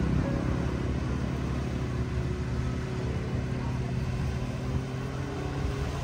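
An engine running steadily, a low hum that holds one pitch throughout.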